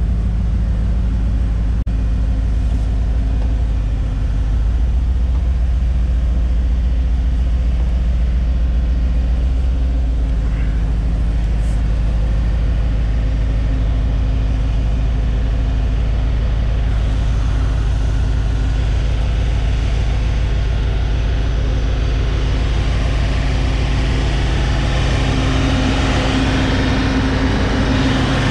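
John Deere compact loader tractor's diesel engine idling steadily, growing louder toward the end.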